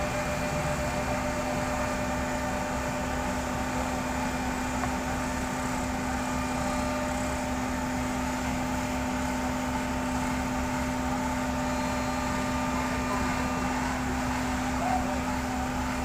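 Sumitomo asphalt paver running at work, its engine giving a steady hum that holds one pitch without revving.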